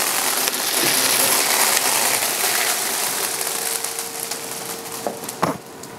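Small filter pellets spilling out of the upper vapour filter cartridge of a tissue processor as it is pulled out and scattering onto the ledge: a continuous rush of tiny rattles that slowly fades, with a couple of sharp clicks about five seconds in.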